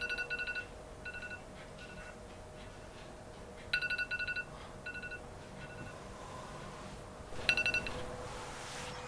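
Electronic telephone ringtone: bursts of rapid, high trilling beeps that repeat irregularly, loudest at the start, about four seconds in and near the end. A faint steady hum runs underneath.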